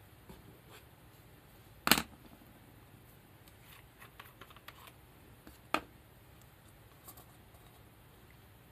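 Tabletop handling of a plastic bottle of leather dye and a paper cup. There are two sharp knocks, the louder about two seconds in and another near six seconds, with light clicking in between as the bottle's cap is unscrewed.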